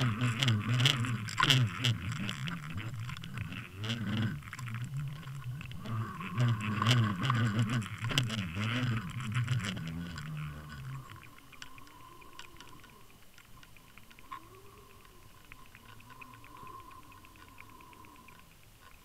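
Low steady hum with rattling, ticking and water noise picked up through an underwater camera housing as it is towed with a fishing lure. The hum stops about 11 seconds in, leaving faint ticking and a slowly wavering tone.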